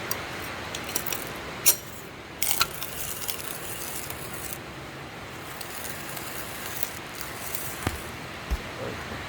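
Coffee grinder grinding fresh coffee beans: a steady gritty grinding with scattered sharp cracks and clicks. The crisp cracking is the sign of fresh, dry beans, unlike stale beans that have taken up moisture and lack the hard crunch.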